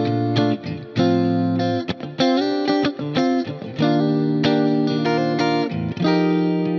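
Saito S-622CS SSH electric guitar played through an amp-simulator plugin with delay and reverb. It plays held chords that change every second or so, with short breaks and quick stabs between them.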